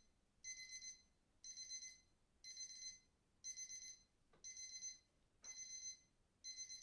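Electronic alarm beeping in quick groups of about four high beeps, one group every second, like a digital alarm clock.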